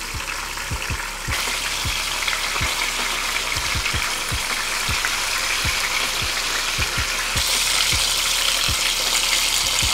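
Flour-coated chicken cutlets sizzling steadily as they shallow-fry in hot olive oil and butter, with faint low thumps about every half second underneath.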